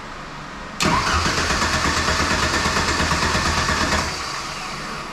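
Ford 2.3-litre Lima four-cylinder engine cranking on its starter from about a second in, for roughly three seconds with a quick even pulsing, and never catching. It does not fire even with starting fluid sprayed in; the owner suspects it is getting no spark.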